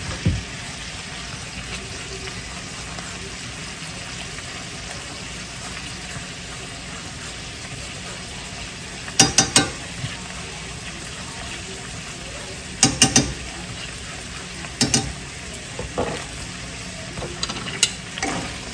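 Head-on shrimp frying in garlic butter in a stainless steel sauté pan, a steady sizzle. From about halfway through, sharp metal taps come in small clusters of two or three.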